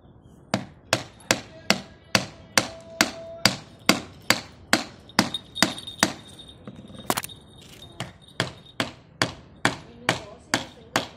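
Hand hammer striking a chisel driven into a piece of wood, steady blows about two a second, each with a short metallic ring.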